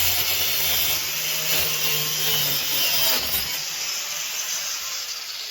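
Power saw cutting through old plumbing pipe: a steady rasping noise with a low motor hum that drops away about three seconds in, cutting off sharply at the end.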